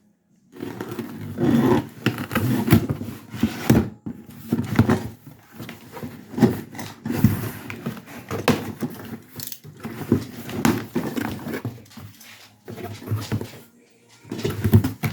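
Close rustling, crinkling and knocking of packaging and loose parts as a box of diesel-heater fittings is unpacked by hand.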